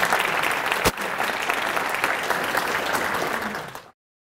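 Audience applauding with many hands clapping. There is one sharp thump about a second in. The applause cuts off suddenly near the end.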